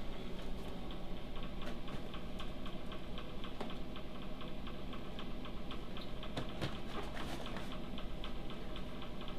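Clock ticking with quick, even ticks over a low steady hum.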